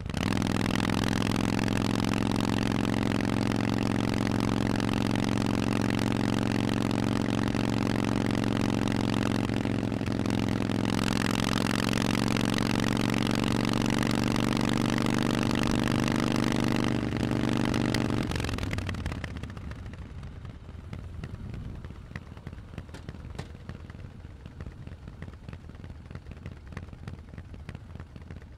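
Harley-Davidson Forty-Eight's air-cooled 1200 cc V-twin running through a Vance & Hines exhaust at a steady cruising speed, a steady low rumble. The note dips briefly about ten seconds in and again near seventeen seconds. Around eighteen seconds in it fades away to a much quieter sound.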